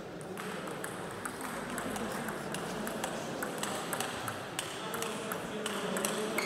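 Table tennis balls clicking off bats and tabletops, a quick irregular patter of sharp hits from rallies on several tables, over a murmur of voices.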